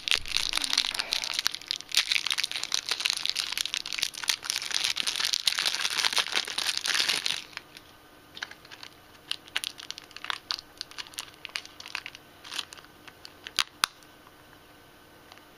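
Clear plastic wrapping on a small cardboard box being torn and crinkled by hand, a dense crackling that goes on for about seven seconds and then stops suddenly. After that there are scattered light taps and rustles as the unwrapped cardboard box is handled and opened.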